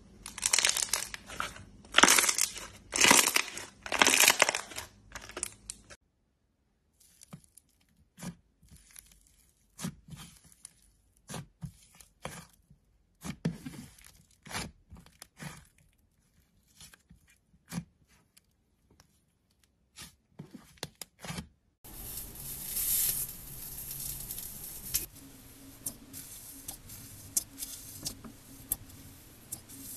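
Hands pressing and pulling thick slime, with about five loud surges of sound in the first six seconds. Then clay-like slime kneaded between the hands, with scattered short pops and clicks. About eight seconds before the end, a metal rod starts stirring slime in a glass bowl: a steady hiss with clicks on top.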